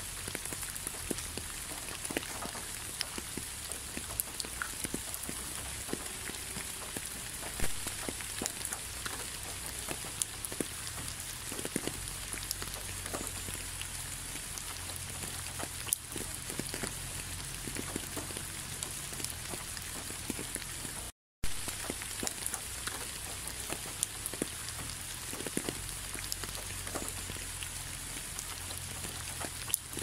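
Steady rain: an even hiss studded with many sharp individual drop impacts. It cuts out for a split second about two-thirds of the way through.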